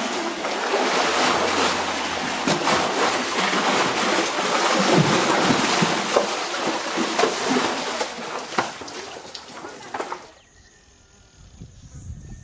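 Cattle plunging and swimming through a dip tank, the dip wash splashing and sloshing loudly. The splashing stops suddenly about ten seconds in, leaving a faint quiet background.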